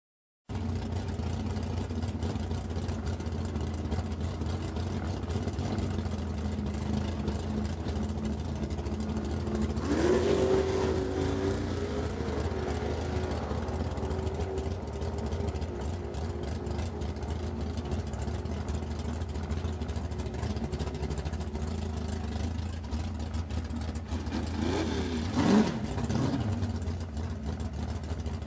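A 1967 Dodge Coronet drag car's engine idling with a steady rumble. About ten seconds in it is revved up and held at a higher speed for a few seconds before easing back. Near the end it is blipped sharply up and down, the loudest moment.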